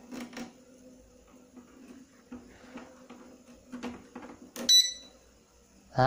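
Digital scale's keypad buzzer giving one short high beep as its number 4 key is pressed, after a few faint clicks. The beep shows the key now registers, its controller IC's corroded pins freshly resoldered.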